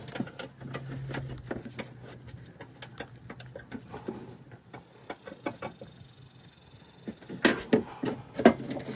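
Small clicks, taps and rustles of hands handling the loosened antenna base parts, with a few louder knocks about seven and a half seconds in, over a steady low hum.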